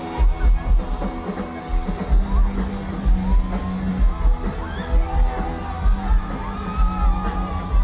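Live rock band playing: electric guitars with bass and a heavy kick-drum beat that come in at the start, and a male singer's voice singing and yelling over it from about two seconds in.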